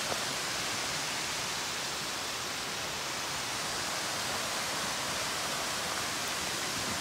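Steady rush of a waterfall, an even hiss of falling water.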